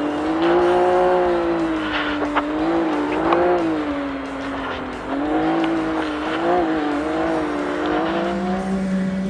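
Side-by-side UTV engine racing, its pitch rising and falling with the throttle, with a few sharp knocks. About eight seconds in, a steady, unchanging hum takes over.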